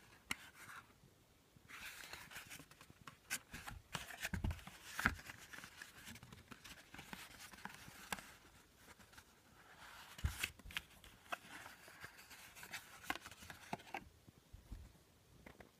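A small cardboard box being handled and opened to take out a pair of diagonal cutting pliers: rustling and scraping of the card with many scattered light clicks and a few dull taps.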